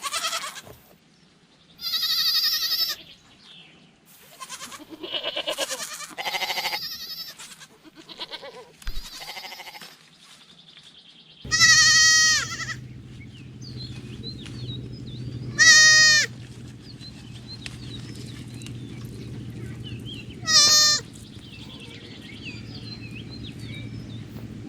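Goats bleating: a run of bleats, then three loud, wavering bleats a few seconds apart over a steady low hum.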